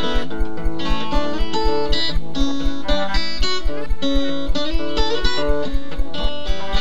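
Acoustic guitar picking a melody with chords, over a steady low beat of about four thumps a second.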